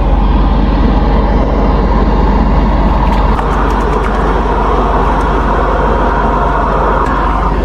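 Motorised drain-cleaning equipment running steadily: a loud, even noise over a low hum.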